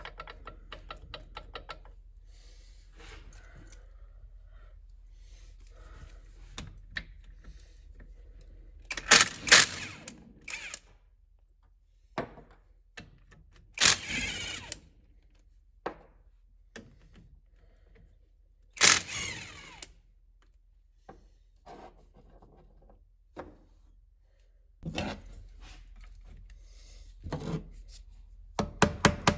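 Impact driver hammering on bolts in short rapid bursts, about eight blows a second, at the start and again near the end, as a bearing cap is unbolted from a tractor transmission case. Between the bursts, a few loud clanks of metal tools and parts being set down and handled.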